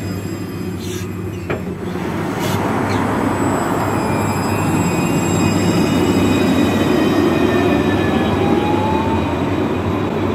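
Alstom Citadis 302 tram pulling away from the platform: a few sharp clicks, then a steady rumble of wheels on rail that swells, with the electric drive's whining tones gliding in pitch.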